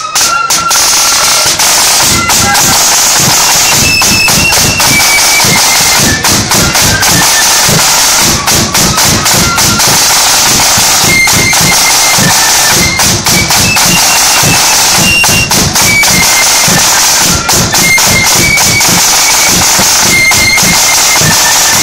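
Marching flute band playing loudly: a stepping melody on flutes over rapid, steady side-drum beating.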